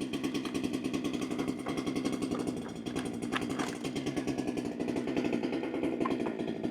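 Holzfforma G395XP chainsaw, a Husqvarna 395XP clone, with its two-stroke engine idling steadily, plus a few faint clicks.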